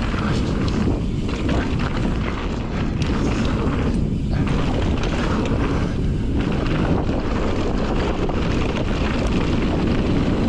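Steady rush of wind over the microphone during a fast mountain bike descent on a dirt trail, mixed with tyre noise and frequent small rattles and knocks from the bike over bumps.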